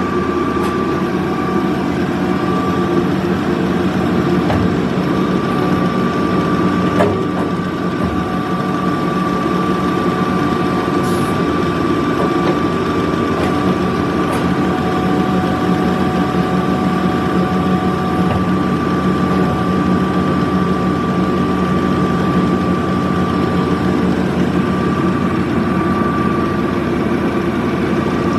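Amada HA250W automatic horizontal band saw running steadily, a constant hum with a steady high whine.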